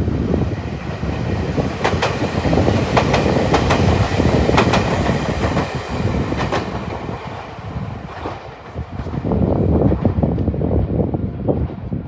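Electric multiple-unit train passing close by: a steady rumble of running gear with sharp clacks as the wheels cross rail joints, the sound easing off toward the end.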